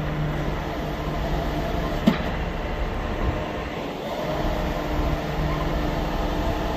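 Caterpillar 926 wheel loader's diesel engine running steadily as the machine is driven onto a trailer, with one sharp metallic clank about two seconds in.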